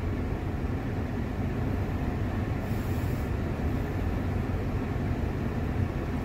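A car's engine idling, heard from inside the cabin as a steady low rumble.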